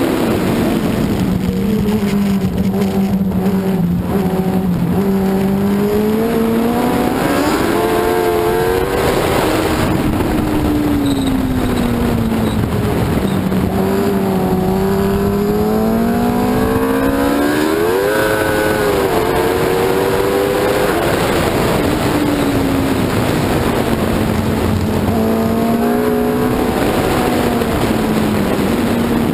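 F1 racing sidecar's 1000 cc four-stroke engine at racing speed, heard onboard with wind rush. The engine note climbs under acceleration and drops on braking several times, with a stepped pitch near the end as gears change.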